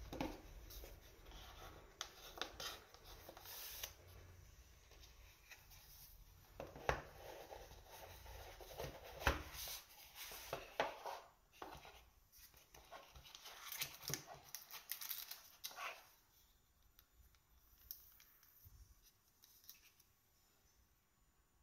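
A paperboard knife box being opened by hand: irregular scraping, rustling and sharp clicks as the cardboard and its paper wrapping are handled and the inner box slides out of its sleeve. The sounds die down about three quarters of the way in.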